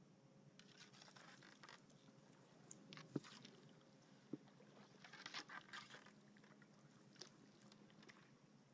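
Kayak being paddled quietly through flooded timber: faint crackling and rustling of twigs and floating debris brushing the hull, with a sharp knock about three seconds in and a lighter click a second later.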